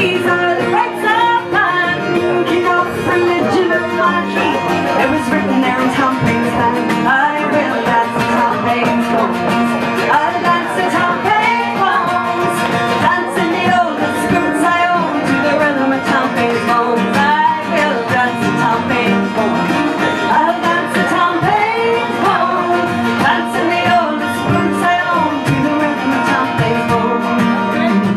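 Live folk song: a woman singing with two acoustic guitars strumming along.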